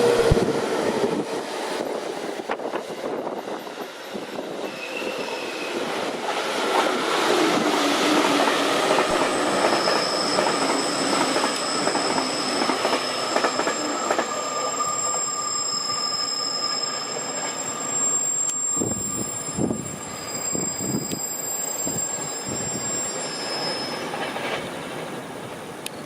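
Electric multiple-unit train slowing into a station. Its motor hum falls in pitch at the start, then high-pitched brake and wheel squeals come and go for several seconds over the rolling noise.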